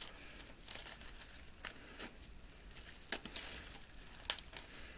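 Plastic shrink-wrap on a CD case being picked at and peeled off, crinkling with irregular crackles and small snaps, the sharpest about four seconds in.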